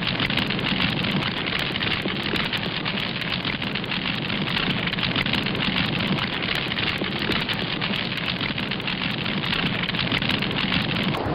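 Steady, dense crackling noise like heavy rain or static, with a low hum underneath, used as an ambient sound effect. Right at the end it switches abruptly to a softer rushing noise.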